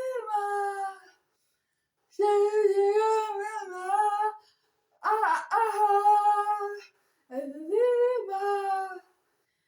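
A high voice singing or humming long held notes, in phrases of one to two seconds separated by short pauses.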